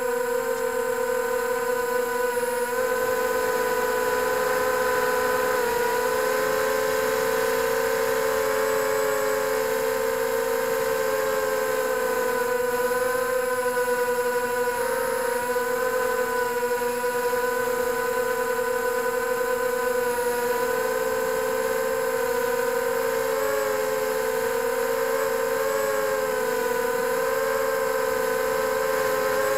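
FPV drone's electric motors and propellers whining steadily in flight, the pitch wavering slightly up and down as the throttle changes.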